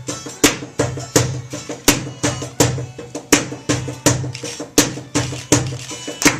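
Live soul/R&B band playing an instrumental groove with no singing. Drums hit a steady beat about every three-quarters of a second under guitar and band.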